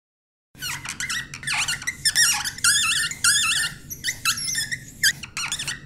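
Marker pen squeaking across a whiteboard: a quick run of short, high squeaks that waver in pitch with each stroke, starting about half a second in.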